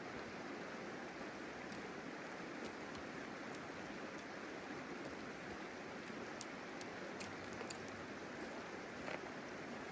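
Shallow river running over rocks, a steady rush of water, with a few faint clicks of stones underfoot and a folding camp chair being set down.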